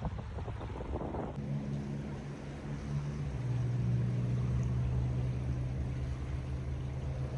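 Motorboat engine running steadily, a low hum whose pitch drops a little about three seconds in. Wind rumbles on the microphone in the first second.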